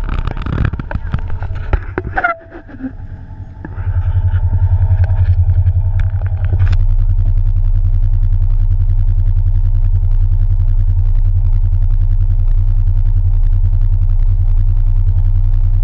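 Polaris RZR side-by-side's engine running under way along a dirt trail, heard from the seat: a steady low drone that comes up strongly about four seconds in as the machine pulls away.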